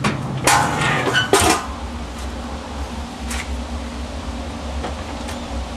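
Two short bursts of clattering and rustling as food, foil and dishes are handled at the grills, then a steady low hum with a few faint clicks.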